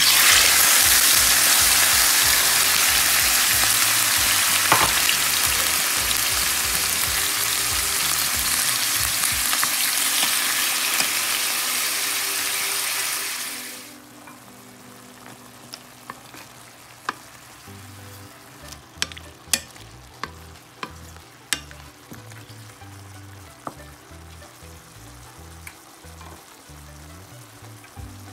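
Squid pieces hitting hot oil in a nonstick frying pan and frying with a loud, even sizzle. About fourteen seconds in the sizzle falls away quickly to a much quieter simmer, broken by scattered sharp pops and clicks.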